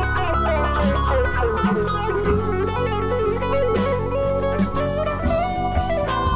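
Instrumental passage of a live Americana band: an electric guitar plays a winding lead line over keyboard chords and a drum kit, with cymbals and drums keeping time.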